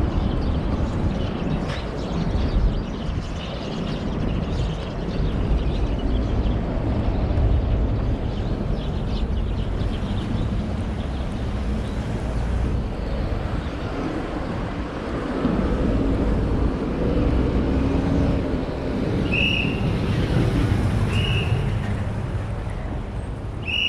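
Road traffic on a city street: a steady low rumble of passing vehicles, with one vehicle's engine passing by a little past the middle. A few short high chirps come near the end.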